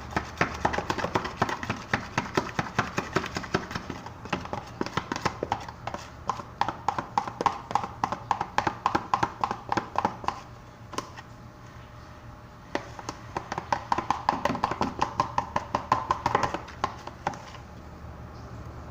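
A utensil stirring a runny glue-based slime mixture fast in a cup, clicking against the sides several times a second, with a pause of about two seconds midway.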